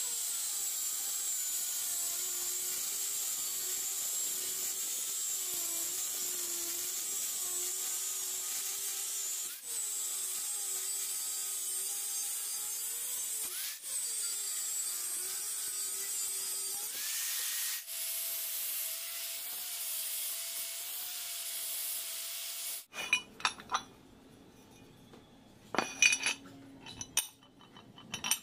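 Angle grinder working steel: a motor sound with a hissing rush, its pitch wavering under load and briefly dipping twice. About 17 s in, the pitch jumps higher and runs steady as the grinder spins free, and it shuts off about 23 s in. Clinks and knocks of metal pieces being handled follow.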